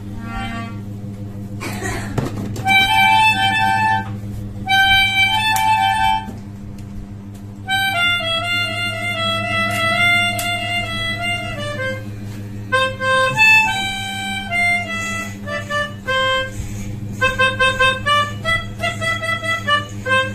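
A child playing a simple tune on a melodica (pianika): held reedy notes with short breaks, the notes coming quicker near the end.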